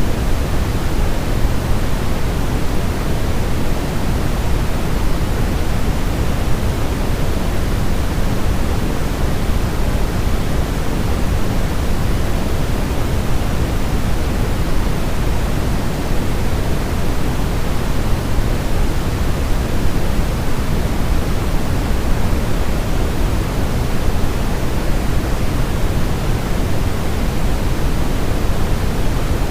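Steady synthetic white noise for baby sleep: an even, unchanging hiss weighted toward the low end, deeper than pure white noise.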